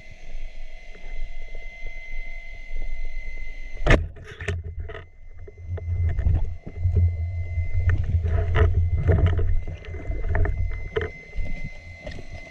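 Speargun shot heard underwater through the camera housing: a sharp crack about four seconds in, then a low rumble of moving water with scattered clicks and knocks that dies down near the end.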